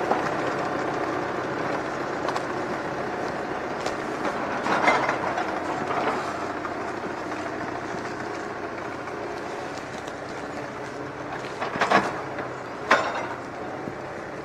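Tractor engine running steadily as it drives a Palms timber crane loading spruce logs onto a trailer, with a few sharp wooden knocks as logs land, the loudest two near the end.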